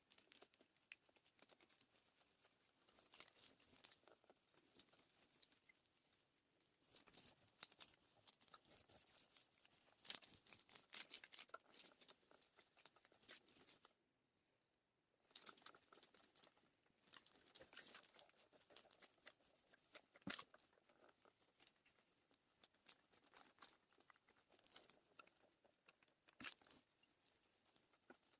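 Faint scratchy rustling of a clothes iron gliding in circles over parchment paper laid on fused perler beads, with scattered small clicks and crinkles. It cuts out completely for about a second midway.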